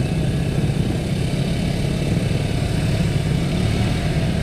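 Motorcycle engine labouring as it climbs a steep, rocky dirt track at low speed: a steady, rough drone. The bike is struggling with the grade.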